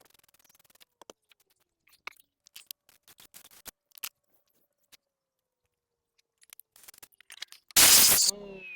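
Small clicks and taps of tools and bolts being handled, then near the end a short loud burst from a power tool running a brake bolt in, its motor whine falling as it spins down.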